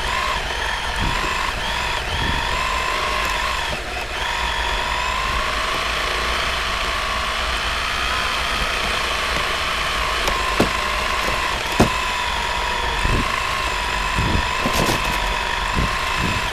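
Radio-controlled car's motor running with a steady high whine that wavers slightly in pitch, with a few sharp knocks as the car drives over ice. The whine drops away at the very end.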